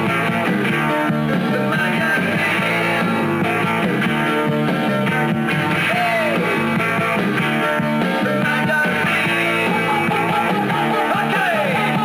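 Rock band playing a song, led by electric guitar over drums.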